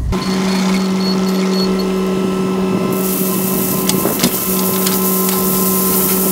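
A compact excavator runs steadily with a constant hum. About halfway in, gravel begins pouring from its bucket in a continuous hiss of small stones, with a few sharp ticks.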